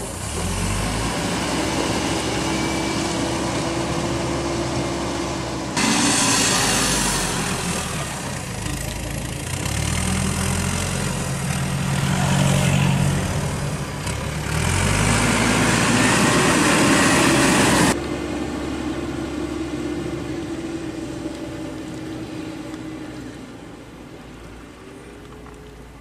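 Backhoe loader's diesel engine running under a steady wash of noise, the engine tones strongest about halfway through. The sound changes abruptly twice, at about a quarter and about two-thirds of the way through.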